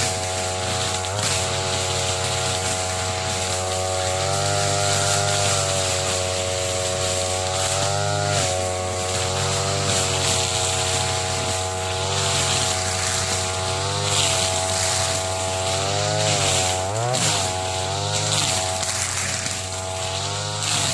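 TB33 brush cutter's small two-stroke engine running at high speed while cutting thick grass, its pitch dipping and rising again every couple of seconds as the load comes and goes.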